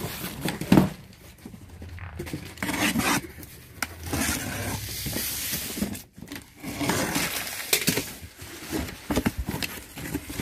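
A large cardboard box is set down on a table with a thump about a second in and shoved about. Then a box cutter slices the packing tape and the cardboard flaps are pulled open, with scraping, rasping and short clicks.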